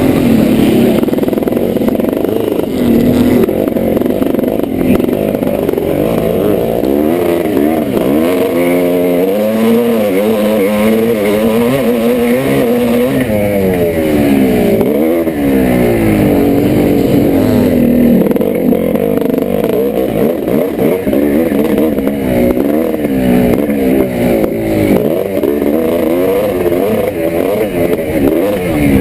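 Two-stroke motocross bikes racing, among them a 1986 Yamaha YZ490: engines revving up and down over and over as they accelerate and shift, several engines overlapping at times.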